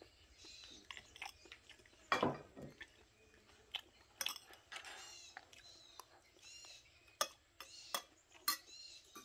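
Metal spoon clinking and scraping against a glass plate while scooping rice, a string of short sharp clicks. About two seconds in there is one louder sound that falls in pitch, and faint high chirps come and go.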